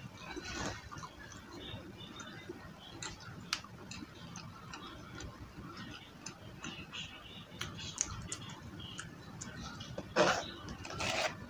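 Scattered small clicks and crackles from crispy fried food being handled and eaten, then louder crackling about ten seconds in as a battered onion ring is picked up from the tray.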